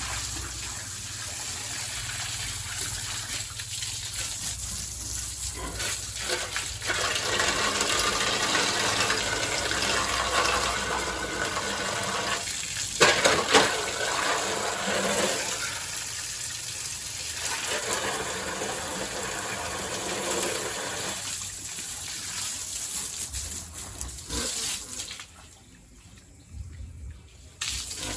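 Water gushing and splashing steadily, with a couple of sharp knocks about halfway through; the water stops briefly near the end, then starts again.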